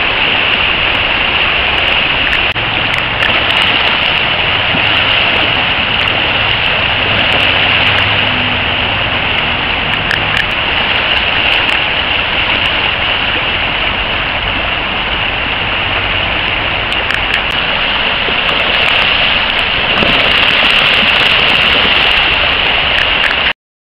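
Creek water rushing over shallow rapids, a loud steady churning hiss that cuts off suddenly near the end.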